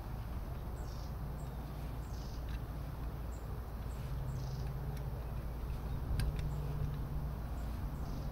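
A few sharp clicks and knocks as a camping gas stove on its canister is handled, the loudest about six seconds in, over a steady low rumble. Short high chirps, most likely a bird's, repeat about once a second.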